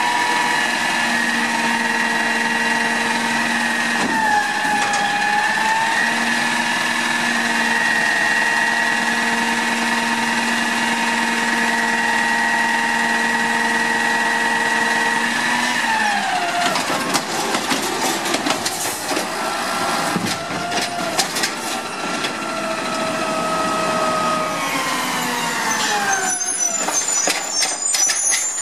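Automated side-loader garbage truck with an Amrep body running its hydraulics, with the engine revved: a steady whine while the arm holds a cart tipped over the hopper. The pitch falls about halfway through as the revs drop. Then come knocks and clanks of the arm and cart, with a lower tone that winds down again near the end.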